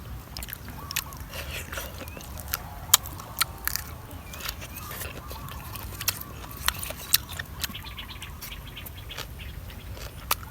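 Outdoor ambience: irregular sharp clicks and taps over a low steady rumble, with faint short bird chirps.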